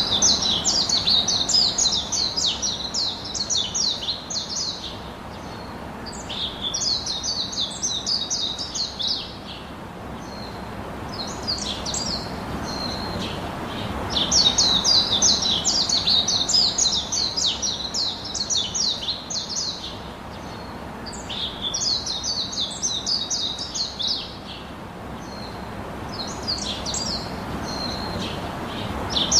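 A bird's rapid, high-pitched chattering song in repeated bouts a few seconds long, with short pauses between them.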